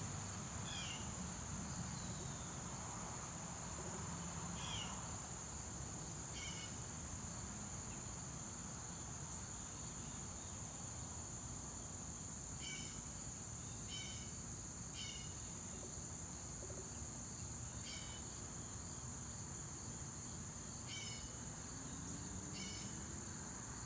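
Steady high-pitched chorus of late-summer insects, with short chirps ringing out about ten times at uneven intervals over a low, even background hum.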